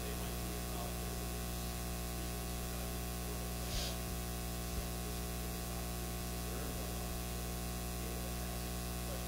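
Room tone: a steady hiss with a low electrical hum, broken only by a brief soft noise about four seconds in.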